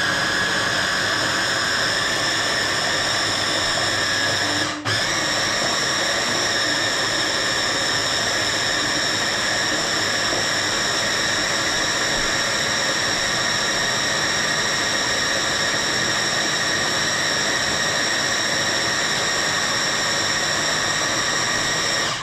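Electric hand blender running steadily on its lowest speed, puréeing raw liver into batter. Its motor makes a continuous high whine that drops out for a moment about five seconds in, then runs on and cuts off suddenly at the end.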